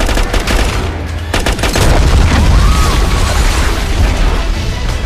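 Film action soundtrack: bursts of gunfire, with clusters of shots at the start and again about a second and a half in. A deep explosive rumble and a dramatic music score run under it.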